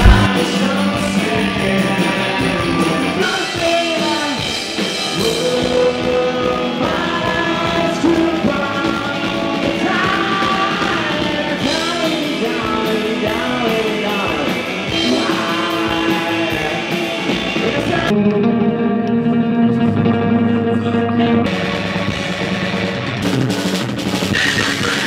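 Rock music with a singing voice. It opens on a sharp click, and for a few seconds past the middle the sound goes dull, its top end cut away.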